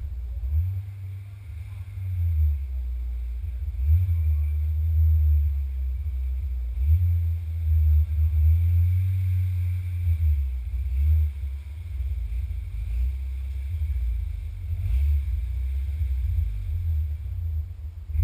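Wind buffeting an action camera's microphone: an uneven low rumble that swells and dips, with little else heard.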